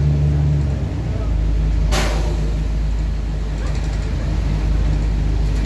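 Mercedes-Benz Citaro city bus's diesel engine, its exhaust blown, running with a deep steady drone heard from inside the bus; the drone shifts about a second in. About two seconds in comes a short, sharp hiss of compressed air.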